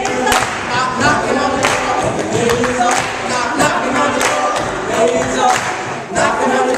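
A group of young voices chanting and singing together in a repeated rhythmic refrain, with sharp hits between the phrases.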